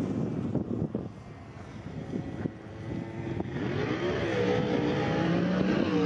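A car engine running, rising and wavering in pitch about three and a half seconds in and getting louder toward the end.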